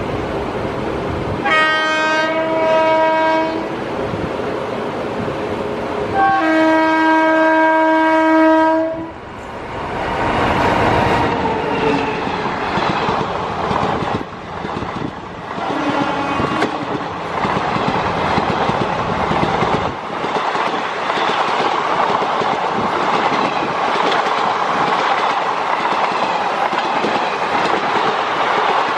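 Indian Railways train horn sounding twice, a short blast and then a longer one of about three seconds, followed by a passing train whose wheels clatter steadily over the rail joints.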